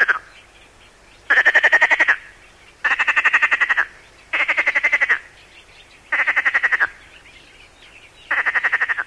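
Perez's frog (Iberian water frog) calling: a series of short, rasping, rapidly pulsed croaks. One call ends just as the sound begins and five more follow at roughly one-and-a-half-second gaps, with fainter frog calls between.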